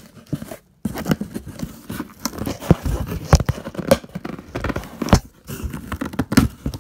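A cardboard shipping box being torn open and handled by hand close to the microphone: tape tearing, and flaps and contents rustling and knocking in a dense, irregular run of crackles and thumps that starts just under a second in.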